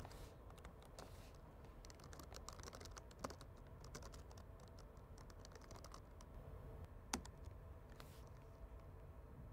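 Faint typing on a computer keyboard: a run of light key clicks as code is typed, with one sharper click about seven seconds in.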